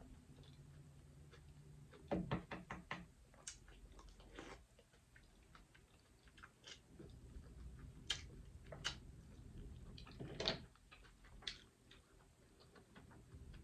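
Close-up eating of seafood: shells clicking and knocking as snow crab legs and mussel shells are handled, cracked and picked at, in scattered sharp taps with a quick cluster about two seconds in.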